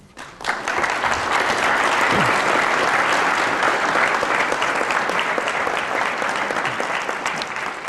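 A large audience applauding: the clapping rises quickly just after the start, holds steady, then begins to thin out near the end.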